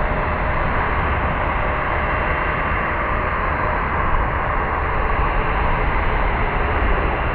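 Airbus A319 jet engines running, a steady rushing noise with a low rumble underneath.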